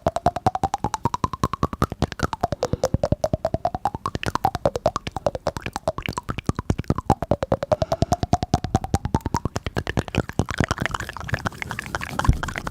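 Synthesizer-like music: a fast, even ticking under a tone that repeatedly dips and then slowly glides back up.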